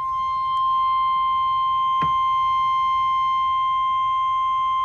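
NOAA Weather Radio warning alarm tone: one loud, steady, high-pitched 1050 Hz tone that announces a severe weather warning. A faint click sounds about two seconds in.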